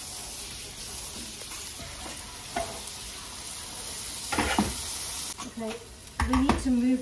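Chopped onions sizzling in a large wok, stirred with a wooden spoon that knocks against the pan a few times; the onions are frying hot enough to start burning. A steady hiss drops away about five seconds in.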